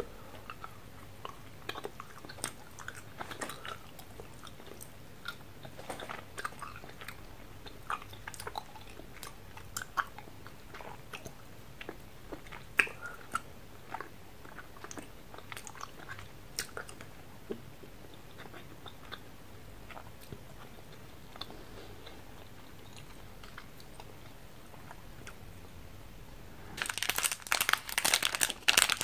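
Close-up chewing of a soft filled gumball, small wet clicks and crunches scattered through the first half. Near the end a plastic candy wrapper crinkles loudly as it is handled.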